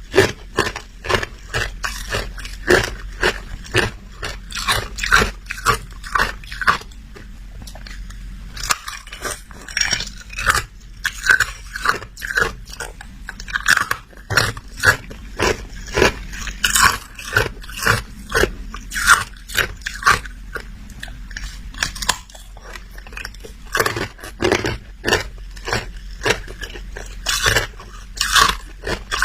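Close-up chewing of hard ice: a rapid, irregular series of sharp crunches as the ice is bitten and ground between the teeth, with a couple of brief pauses.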